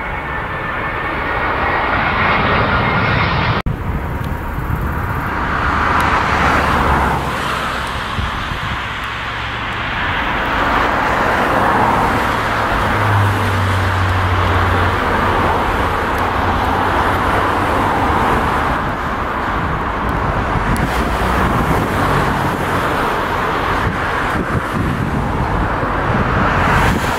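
Jet airliner engine noise: a continuous rushing rumble that swells and eases several times, with a sharp break about four seconds in.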